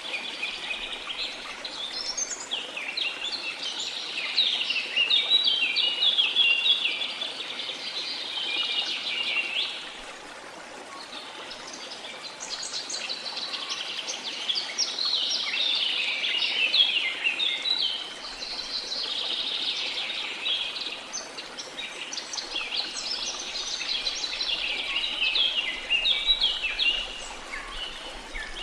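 Small songbirds singing and chirping in long, rapid bouts with short pauses between them, over a faint steady wash of sea water.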